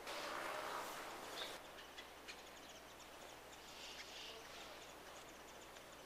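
Faint outdoor ambience beside a stream. A brief rush of noise lasts about the first second and a half, then a low, steady background continues with a few faint, distant bird chirps.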